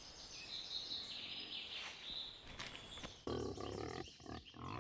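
Quiet outdoor ambience with faint bird chirps. About three seconds in, louder low-pitched sounds set in.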